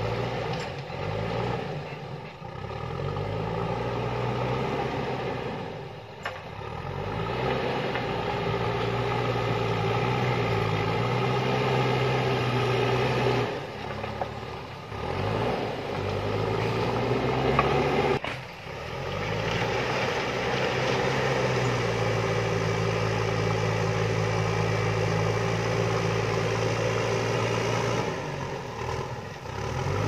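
JCB backhoe loader's diesel engine working under load as the front bucket pushes earth, its pitch rising and falling with the throttle and the revs dropping briefly several times.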